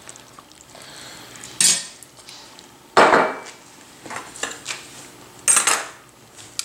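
A metal serving spoon clinking and scraping against a cast-iron Dutch oven and a plate as food is dished out. There are three sharp clatters, the loudest about three seconds in with a short ring after it, and lighter ticks between them.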